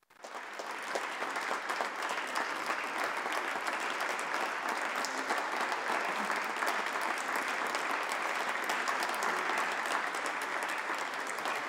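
Applause: many people clapping steadily, starting suddenly.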